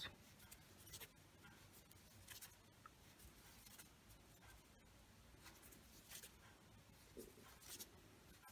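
Near silence with faint, scattered ticks and rustles of a crochet hook and yarn being worked stitch by stitch.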